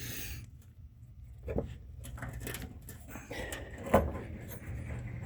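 Snowblower auger drive belt being worked by hand over a small pulley and behind the tensioner: light scraping and rubbing with a few sharp knocks, the loudest about four seconds in.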